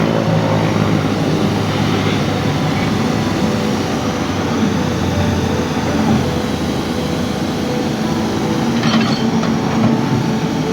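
A steady engine drone with a wash of noise over it, and a brief rattle about nine seconds in.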